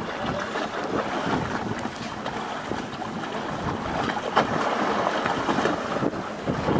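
Wind buffeting the microphone on the deck of a sailing ship, with water rushing along the hull. A short knock about four and a half seconds in.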